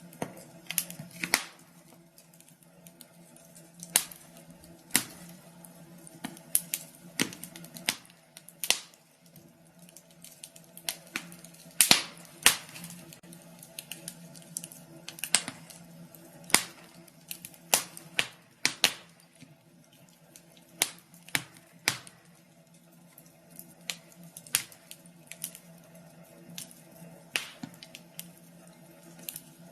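Wood fire in a fireplace crackling, with irregular sharp pops and snaps, some much louder than others, over a faint steady low hum.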